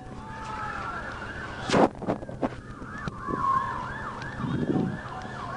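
Police car siren wailing in slow rising and falling sweeps, then switching to a quicker yelp of about three sweeps a second near the middle. A single sharp knock sounds about two seconds in.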